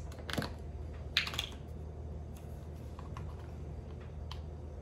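A few light clicks and brief scrapes of measuring spoons and spice containers being handled while dry ingredients are measured out, over a low steady hum.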